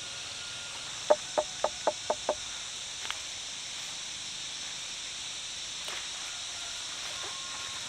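Steady high drone of insects in the countryside, with a quick run of six short call notes from an animal about a second in, each softer than the last.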